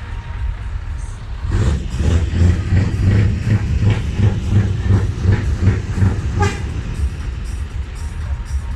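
Low, steady rumble of a heavy truck at a truck meet. About one and a half seconds in, loud music with a heavy, regular bass beat comes in over it.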